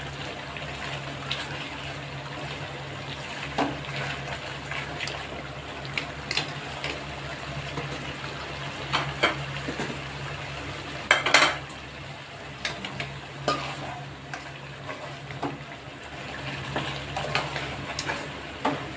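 A spatula and then a ladle stir and scrape in a metal kadhai of simmering partridge masala gravy, clinking against the pan now and then, the loudest clink about eleven seconds in. A faint sizzle of the gravy and a steady low hum lie underneath.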